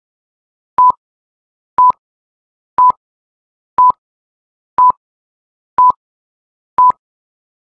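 Film-leader countdown beeps: a short beep of one steady pitch once a second, seven in all, each starting and ending with a click.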